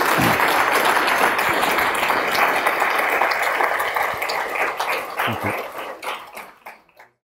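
Audience applauding, with a few voices among the clapping; the applause fades away near the end.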